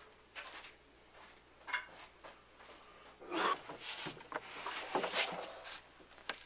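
Scattered scraping, rubbing and a few light clicks as a flat metal strip is worked against the spring drum of a parking brake lever assembly, setting its self-adjuster to take up the cable slack. The loudest rubs come about three and five seconds in.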